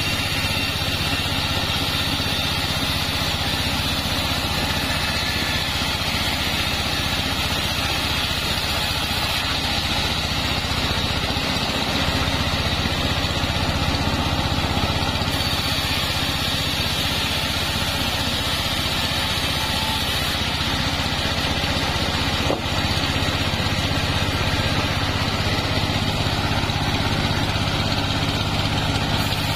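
Small engine-driven band sawmill running steadily as its blade saws sengon logs lengthwise, a continuous engine drone with a hiss from the cut.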